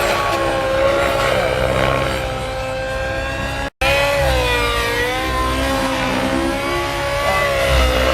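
Radio-controlled helicopter in flight, a steady loud whine of motor and rotor whose pitch dips and rises slightly as it manoeuvres. The sound cuts out for a split second just before four seconds in.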